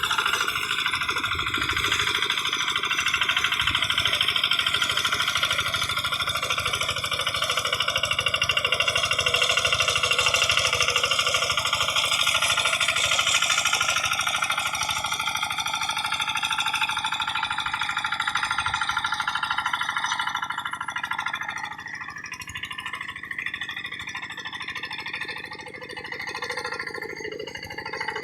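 Kubota RD85 DI single-cylinder diesel engine of a paddy-field hand tractor running with a fast, even chug, growing quieter about three-quarters of the way through.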